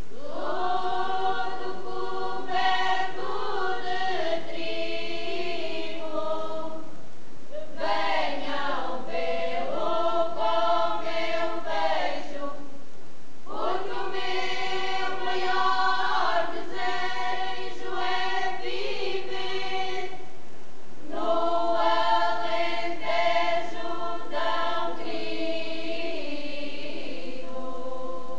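Folk choir of mostly women's voices singing unaccompanied in harmony, in four long phrases with short breaks between them.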